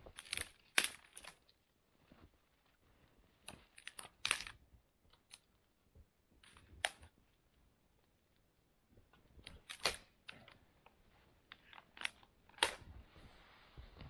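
Dry dead conifer branches snapping off by hand for firewood: a dozen or so sharp cracks at uneven intervals. Near the end come rustling and crunching, as of snow and needles.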